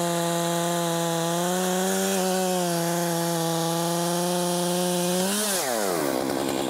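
Stihl MS 661 two-stroke chainsaw with a 36-inch bar cutting through a large oak log at full throttle, its engine note steady under load. About five and a half seconds in the throttle is released and the revs fall quickly to idle.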